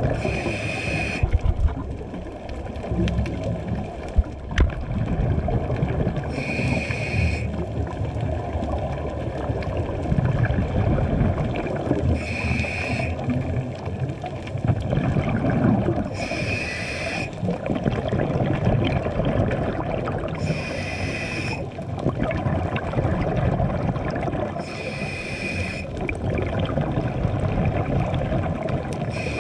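Scuba regulator breathing underwater: a hiss of about a second roughly every four to six seconds, with bubbling, low rumbling water noise between the breaths.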